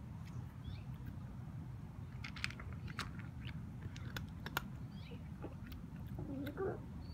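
Kitten crunching dry kibble: scattered sharp crunches from about two seconds in, over a steady low background rumble. Near the end come a few short wavering low sounds from the kitten as it eats.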